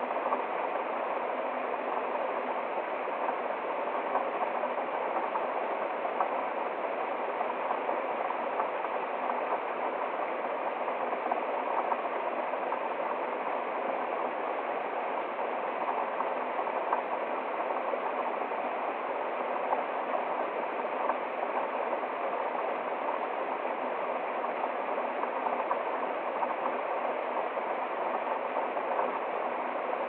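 Small forest waterfall and stream splashing steadily over rocks.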